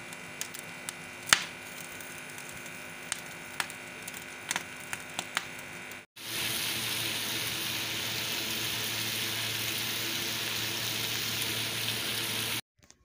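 Gas burner flame hissing under chicken feet being singed on the grate, with scattered sharp crackles. About six seconds in it gives way to a louder, steady sizzle of chicken feet frying in a steel pan.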